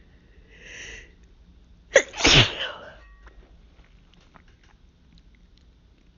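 A woman sneezes once with a single loud sneeze about two seconds in, after a breathy build-up about a second earlier. It is an allergic sneeze from pollen hayfever.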